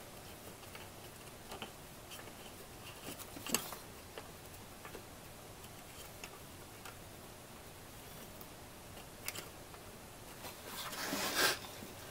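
Faint scattered metallic clicks and taps as the mounting bolts of a new water pump are started by hand into the engine block. A brief, louder scraping rustle comes near the end.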